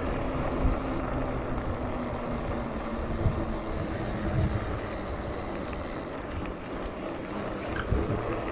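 Steady rumbling wind buffeting and rolling noise from a mountain bike's knobby tyres on asphalt, with a faint hum and a couple of small knocks from the bike, one about three seconds in and one near the end.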